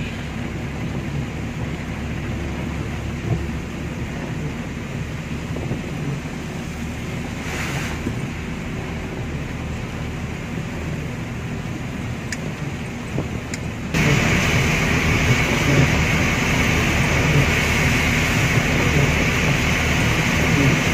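Steady engine and road noise inside the cab of a moving light truck (canter). About fourteen seconds in it suddenly gets louder, with much more hiss.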